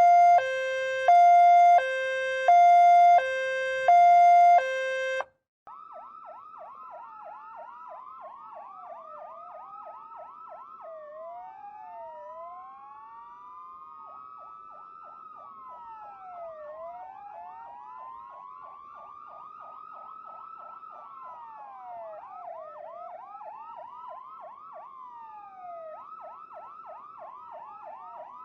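Electronic two-tone hi-lo ambulance siren alternating between a low and a high tone, each held about half a second; it cuts off suddenly about five seconds in. Then quieter layered sirens take over, a fast yelp of rapid rising sweeps overlapping slower wails that rise and fall over a few seconds.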